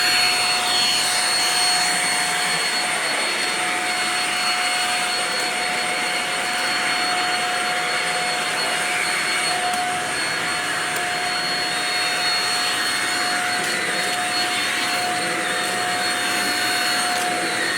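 Shark DuoClean vacuum cleaner running steadily on carpet: an even rush of air with a steady high whine from the motor.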